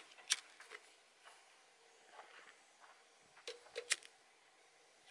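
A pocket lighter being flicked to light a small hand pipe: sharp clicks, one about a third of a second in, then three in quick succession around three and a half to four seconds in.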